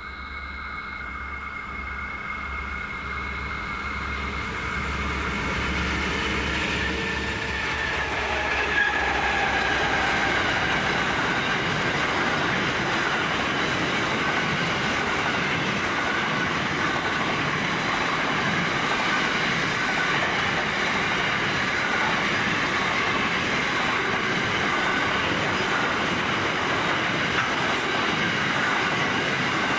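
A diesel-hauled container freight train approaching and passing, led by a BL class and a G class diesel-electric locomotive. The sound grows louder as it nears, and the locomotives' engine note drops in pitch as they go by about eight seconds in. After that, a long string of loaded container wagons rolls past with a steady rumble and clickety-clack of wheels over the rail joints.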